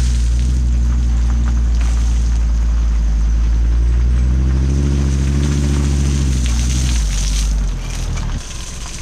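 A van's engine running, its pitch rising as it revs about halfway through and falling back; it drops away near the end.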